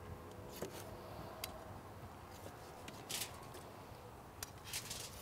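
Knife slicing through a grilled ribeye steak on a cutting board, with faint scraping of the blade and clicks of the metal tongs holding the meat. A few short, sharper scrapes come about three seconds in and again near the end.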